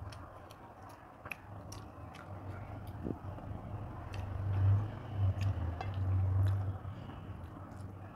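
Eating by hand: fingers squishing rice and curry on a plate and chewing, with many small wet clicks. Under it a low rumble swells and fades, loudest about halfway through and again near the end.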